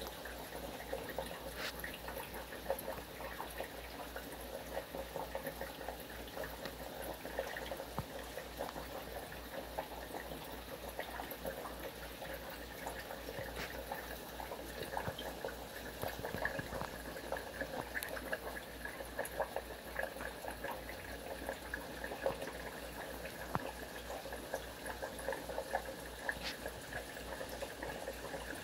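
Water bubbling and trickling in a shrimp aquarium, with many small bubble pops over a steady low hum.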